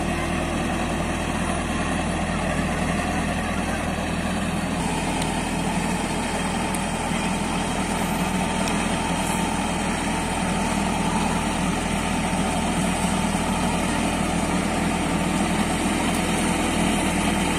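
Heavy construction-machine engine running steadily at low revs, its note shifting slightly about five seconds in.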